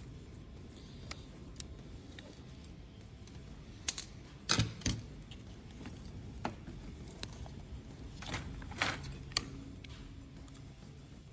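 Metal-and-plastic car door latch parts being handled and taken apart by hand: scattered sharp clicks, with short bursts of clatter about four and a half seconds in and again around eight to nine seconds in.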